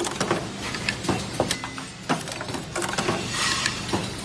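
Automatic ultrasonic ear-loop mask welding machine running: a steady low hum under rapid, irregular mechanical clicks and clacks from its moving parts.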